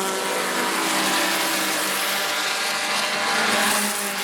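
Historic racing car engines running at high revs as cars pass on the circuit: one engine note falls in pitch as it draws away, while the sound of another car builds towards the end.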